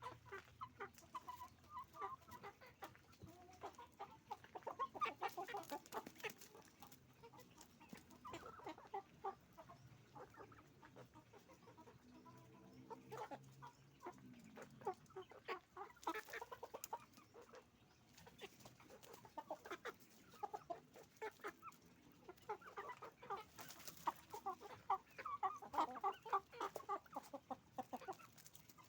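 A flock of chickens clucking continuously, many short overlapping calls, busiest near the end.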